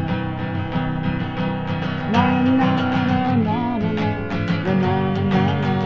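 Acoustic guitar strummed in a steady rhythm as song accompaniment, with a held, wavering melody line over it starting about two seconds in and again near the end.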